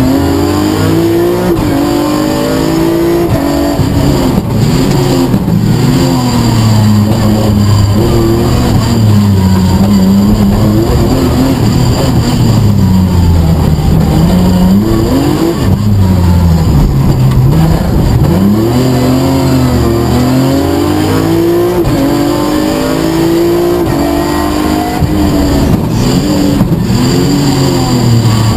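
BMW E46 M3's straight-six engine, heard from inside the cabin at racing pace, revs climbing and dropping again and again through gear changes and braking for corners, over a loud rush of road noise.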